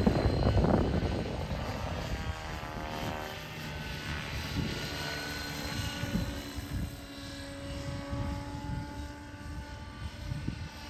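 T-Rex 550 radio-controlled helicopter flying overhead: the whine of its rotors and drive rises and falls in pitch as it manoeuvres. It is loudest in the first couple of seconds, then fainter as it moves off.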